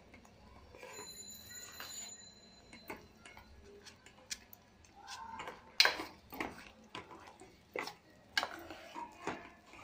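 Metal spoon knocking and scraping against a stainless steel pot while stirring thick rice-flour dough cooking in milk: irregular sharp clicks, with several louder knocks in the second half.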